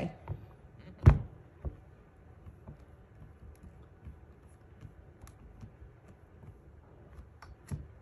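Clear acrylic lid of a stamping platform closing onto the base with a sharp knock about a second in and a smaller one just after. Faint taps and rubs follow as hands press the lid down, and a click near the end as it is lifted.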